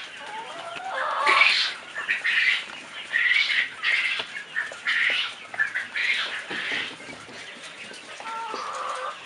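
A flock of young chickens peeping and cheeping, with short high calls coming about once a second.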